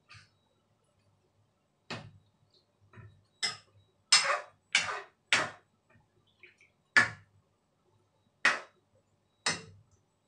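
Metal spoon knocking and scraping against a large metal frying pan as chicken curry is stirred: about ten short, sharp strokes at an uneven pace, with a quick run of three around the middle.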